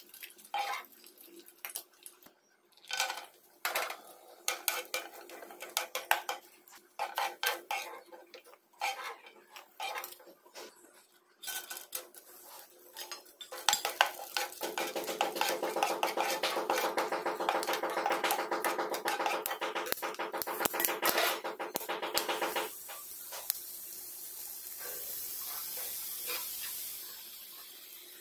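Metal spoon clicking and scraping against a non-stick frying pan as dried fruit is stirred in hot oil. About halfway through it turns into a dense, continuous run of stirring and frying while peeled watermelon seeds are toasted, then settles into a softer sizzle near the end.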